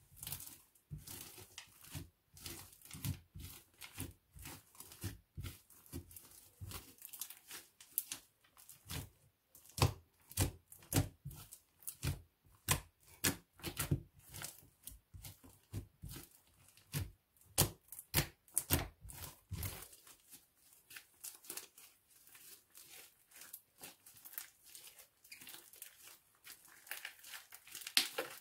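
Black slime made with glue and shaving foam being pressed, patted and squeezed by hand: quick sticky pops and crackles of air pockets bursting. The clicks are dense and sharp for about the first twenty seconds, then turn softer and finer.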